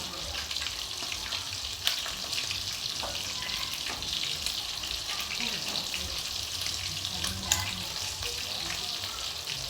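Gravy sizzling in a hot saucepan as it is stirred, a steady hiss with two sharp clinks of a utensil against the pan, about two seconds in and again near the end.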